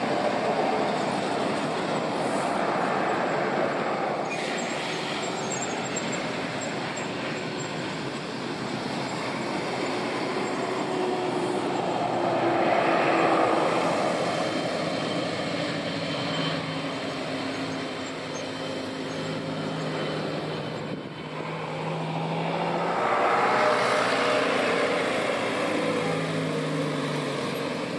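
Airbus A330's twin jet engines at takeoff thrust during the takeoff roll: a steady roar that swells about 13 seconds in and again near 24 seconds, with a low hum underneath in the second half.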